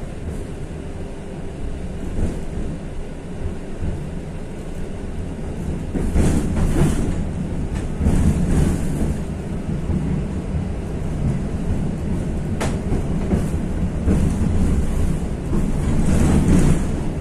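A 71-623-02 (KTM-23) tram heard from inside, running over the rails with a low rumble that gets louder about six seconds in as it gathers speed. The wheels knock several times over rail joints and crossing track at a junction.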